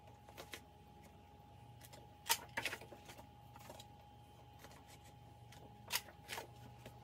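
Handheld disc-binding hole punch (Happy Planner type) snapping through paper-pack covers: two pairs of sharp clicks, one about two seconds in and one about six seconds in, with paper being handled between them.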